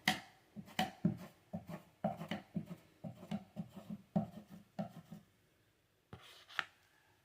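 Repeated short rubbing strokes of a hand tool on a wall surface, about two a second, which stop about five seconds in; a single sharp click near the end.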